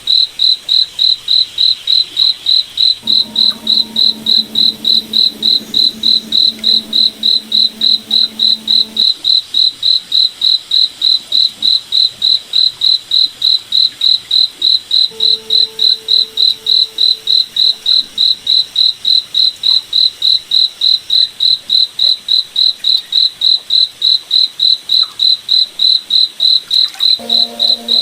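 Cricket chirping steadily, a high pulsing trill at about three chirps a second. A fainter low humming tone comes in and out several times.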